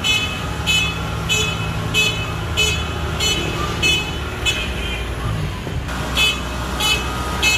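Kubota DC70G combine harvester's diesel engine running with its warning beeper sounding steadily, about one and a half beeps a second, as the machine moves; the beeping breaks off for about a second a little past the middle.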